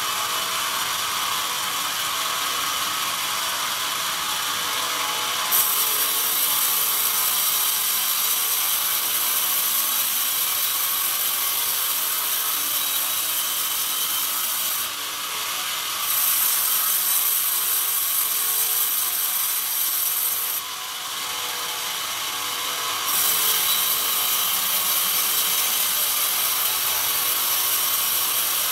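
Horizontal band sawmill cutting a pine log: a steady hissing, whining blade noise over machine running. It grows louder and brighter about five seconds in, dips twice briefly midway and comes back up as the cut goes on.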